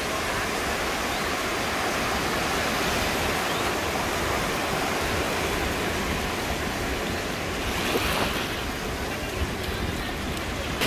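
Small ocean waves breaking and washing over shallow water, a steady rush of surf with a brief surge about eight seconds in.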